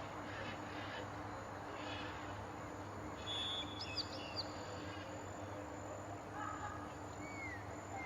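Forest ambience with several birds calling over a steady hiss: short downward-sliding whistles near the start and again near the end, and a quick burst of high chirps about three and a half seconds in.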